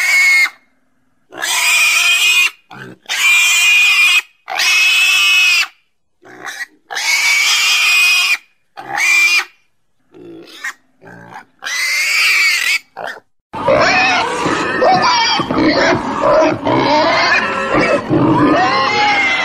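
Pigs squealing: a string of separate shrill squeals, each about a second long, with short silent gaps between them, then from about two-thirds of the way through a continuous din of many pigs squealing at once.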